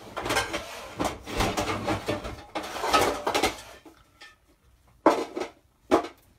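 Kitchen clatter of dishes and utensils being handled: a dense run of knocks, rattles and scrapes for about three and a half seconds, then two short sharp knocks near the end.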